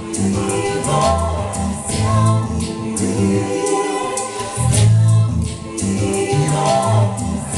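Live band music with singing over a low bass line and regular plucked or struck notes.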